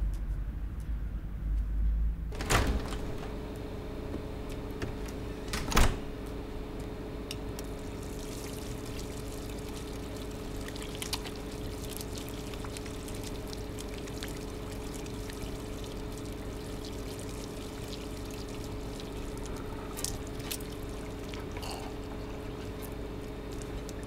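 Wall-mounted tap running steadily into a ceramic basin, the water splashing over hands being washed, with a steady low hum under the flow. The water starts with a click about two and a half seconds in, and a sharp knock comes a few seconds later.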